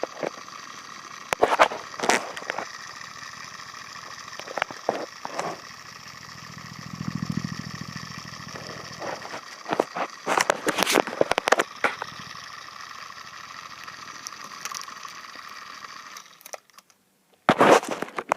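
Small battery-powered toy-top motor of a homemade mini ceiling fan running with a steady high whine, cutting out about sixteen seconds in. Scattered clicks and knocks sound over it.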